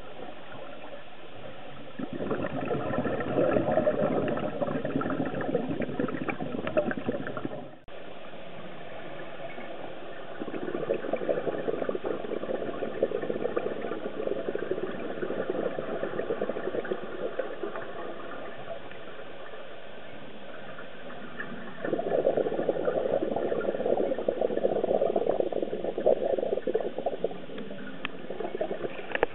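Scuba diver's exhaled bubbles from a regulator, heard underwater through a camera housing: three long bursts of crackling bubbling with a steady hiss between them.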